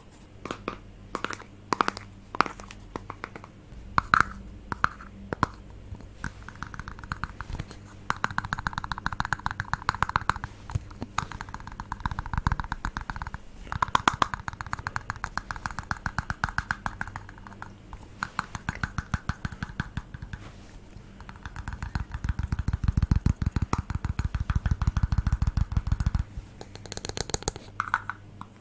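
Crisp ASMR tapping on an object: scattered single taps for the first few seconds, then fast runs of rapid taps, many a second, in spells of a few seconds each, stopping a couple of seconds before the end. A faint steady hum lies underneath.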